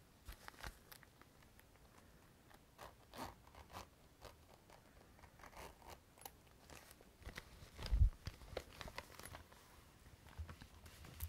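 Small items from a cosmetics pouch being handled: scattered clicks, rustles and scrapes, with one heavier knock about eight seconds in.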